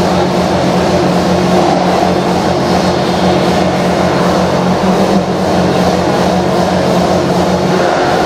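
Loud hardstyle music over an arena sound system: a steady, dense wall of sound with held low notes.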